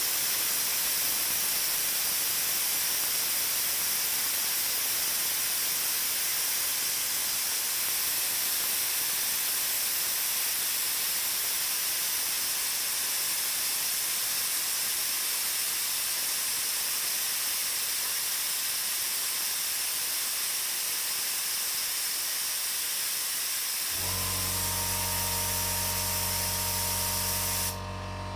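Compressed air hissing steadily out of a pistol-grip air blow gun as the compressor's air tank, with the auxiliary tank clamped off, empties. The hiss cuts off suddenly near the end. A steady low hum starts a few seconds before that.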